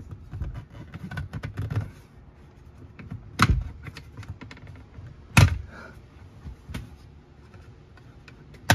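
Plastic clicks and knocks from a pry tool and hands working the tight plastic cover off a Tesla Model Y's rear-view mirror mount, where it is held by clips. Scattered small clicks, with sharp knocks about three and a half seconds in, about five and a half seconds in, and just before the end.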